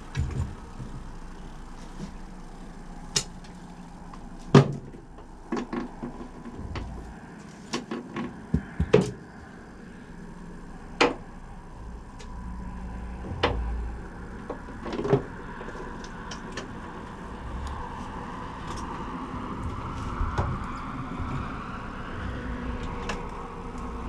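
Scattered sharp knocks and clicks of fishing gear being handled on a boat, over a low rumble.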